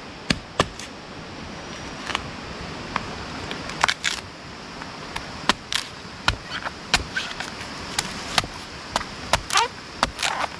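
Irregular sharp knocks and clicks from working a split areca palm trunk, clearing out the soft pith inside, over steady background noise.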